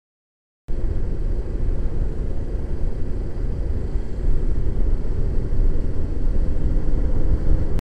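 Suzuki GS500E parallel-twin motorcycle running at road speed, heard through a helmet camera as a steady low rumble of engine and wind on the microphone. It cuts in abruptly under a second in and cuts off just before the end.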